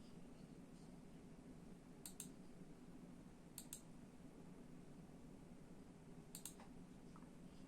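Three faint, separate keystrokes on a mechanical keyboard with Kailh Red linear switches. Each one is a quick double click, spaced a second or more apart.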